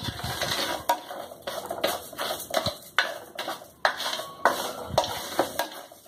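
Black plastic spoon stirring and scraping dry rice grains around a glazed clay cazuela, in irregular strokes about twice a second. The rice is being toasted in a little oil before liquid goes in.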